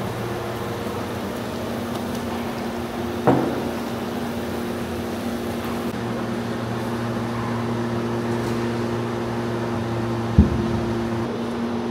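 A large aluminium lid knocks down onto the cloth-wrapped rim of a big pulao pot about ten seconds in, sealing it to steam the rice, after a lighter metal clatter about three seconds in. A steady machine hum runs underneath.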